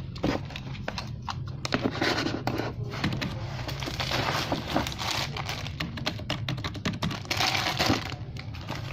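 Rapid, irregular light clicks and taps of small plastic toys and packaging being handled, with two short stretches of rustling, about four seconds in and again near the end.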